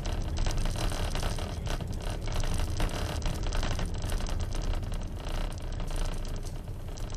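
Steady road and engine rumble inside a moving car, heard through a dashcam's microphone, with frequent small rattles and knocks.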